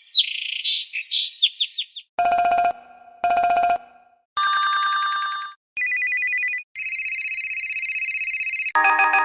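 HTC Rhyme smartphone's built-in ringtones played one after another through its speaker. First comes a high chirping trill, then two short rings, then several different electronic tones, each lasting a second or two.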